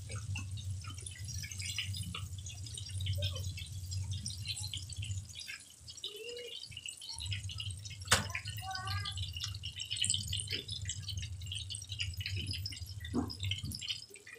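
Hot oil in a wok crackling and sizzling with a dense patter of small pops while fried chicken is lifted out into a metal colander. There is a low hum underneath and one sharp metallic clack about eight seconds in.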